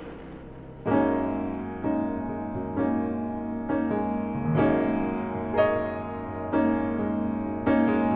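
Background piano music: full chords struck about once a second and left to ring, after a fading cymbal-like swell in the first second.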